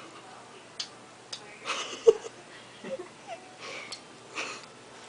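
Dog huffing and sniffing in short breathy puffs, with a brief yelp about two seconds in and a few sharp clicks.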